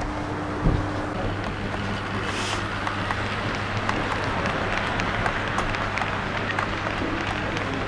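O-gauge model railway running: a steady hum with scattered light clicks, and one louder thump less than a second in.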